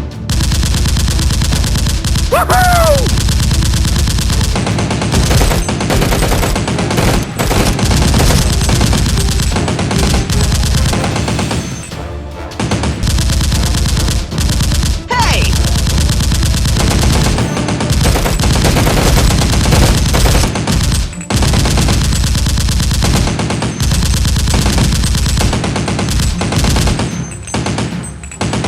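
Sustained machine-gun fire sound effects: long, rapid bursts of automatic gunfire, over background music. A short whistling glide cuts through twice, about two and a half seconds in and again near fifteen seconds.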